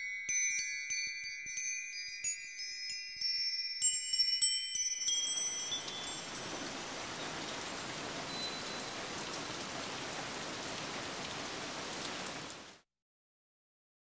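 High, clear chime tones ringing and overlapping for about five seconds, then a steady, even hiss that cuts off abruptly near the end, leaving silence.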